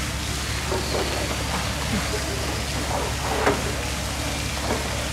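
Steady hissing background noise, with brief faint snatches of people's voices a few times.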